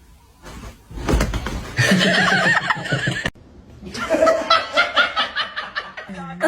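People laughing, in two bouts broken off suddenly about three seconds in, with a low thump about a second in.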